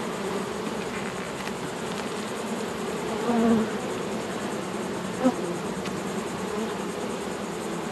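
Honey bees buzzing steadily in a dense hum over an open hive full of frames. The buzz swells briefly about three seconds in.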